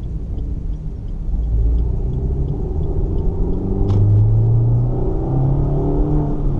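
Stock Suzuki Baleno's 1.4-litre K14B DOHC 16-valve four-cylinder engine and its induction, heard from inside the car, the engine note shifting up and down in pitch. A single sharp click about four seconds in.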